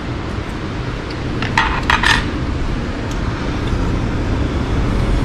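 Butter and soy sauce sizzling in a non-stick frying pan over a steady low hum, with a few short clinks about a second and a half to two seconds in.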